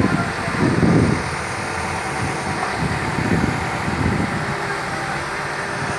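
Backhoe loader's diesel engine running steadily, with a few short low surges near the start and again around three to four seconds in.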